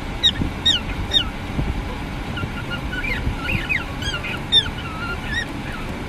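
Cockatiel chirping: a string of short, downward-sweeping whistled calls, several a second at times, over a low background rumble.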